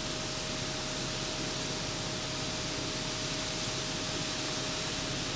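Steady hiss of background noise with a faint, steady high whine running under it; no distinct event.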